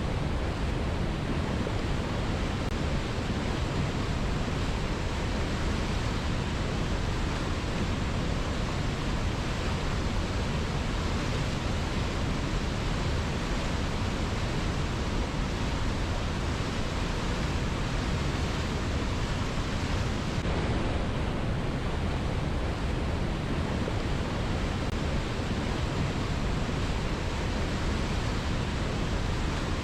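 A fast-flowing river: a steady, unchanging rush of water.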